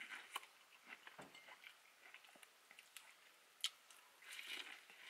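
Quiet close-miked chewing of food, with a few sharp wet mouth clicks scattered through it.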